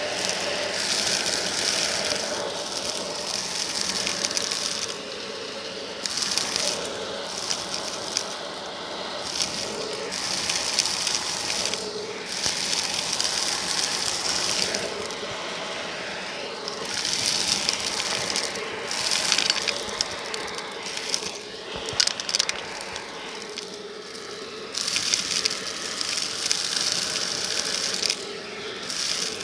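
Cordless stick vacuum running and sucking up small hard bits of debris off cardboard, the pieces rattling and crunching up the tube. The sound swells and dips every few seconds as the nozzle moves onto and off the piles of debris.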